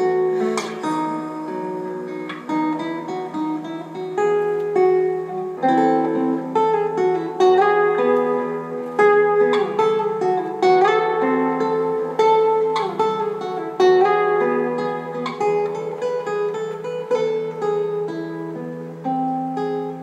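Guitar playing a plucked, picked instrumental passage in a live band song, with no singing.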